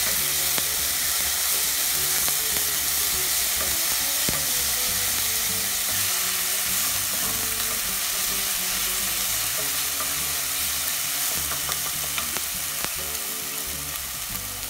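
Ginger, garlic and green chilli paste with carom seeds sizzling steadily in hot oil in a stainless steel pot over medium heat, with a wooden spatula stirring and now and then ticking against the pan. The sizzle eases slightly toward the end.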